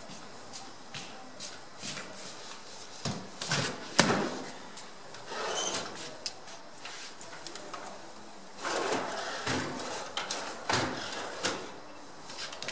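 Scattered clicks and knocks of handling, the loudest a sharp knock about four seconds in, with a few short rustling noises between them.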